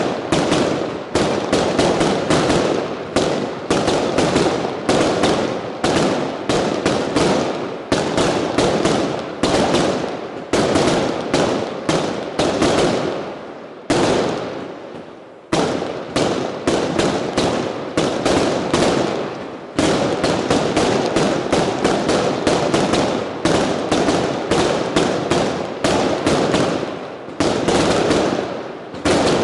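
Consumer fireworks firing a rapid barrage of bangs, several a second, with a short lull about fourteen seconds in before the volley resumes.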